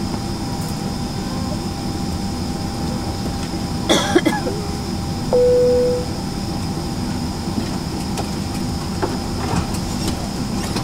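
Steady low rumble and hum of a parked airliner's cabin air system. A brief clatter comes about four seconds in, and a short single-pitch beep a little after five seconds.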